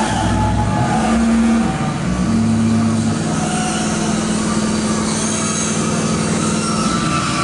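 Loud live electronic music made of deep, droning bass with no beat; a held low note sounds briefly about a second in, then again from about two seconds in until near the end.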